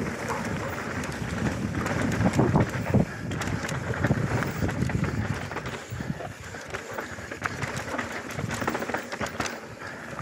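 Mountain bike descending a dry dirt trail at speed: tyres rumbling over dirt and roots, with the chain and frame rattling and many sharp knocks, heaviest a couple of seconds in.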